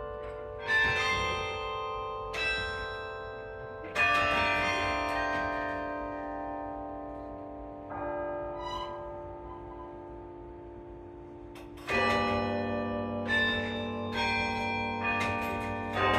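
A 78-bell carillon played from its baton keyboard in a slow piece. Bell chords are struck every two to four seconds and left ringing, each dying away slowly, and about three-quarters of the way through the notes come more quickly.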